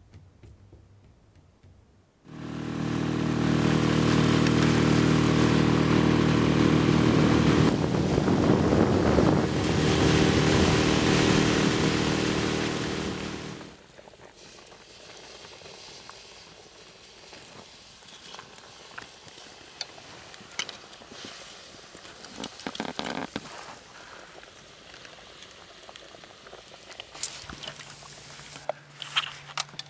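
An engine runs loudly and steadily for about eleven seconds, then stops. Afterwards there is faint crackling from an open fire under a simmering pot of fish soup, with a few knocks of a ladle against the pot.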